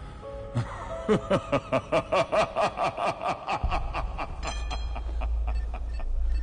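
Film soundtrack effects: a rapid run of about a dozen short pulses, each dropping in pitch, about five a second and fading away, then a steady low rumble with faint high tones over it.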